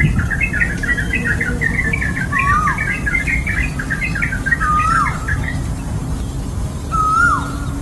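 Songbirds singing: a fast, jumbled twittering song for the first five seconds or so, and a slurred whistle that rises then drops sharply, repeated three times, over a steady low rumble.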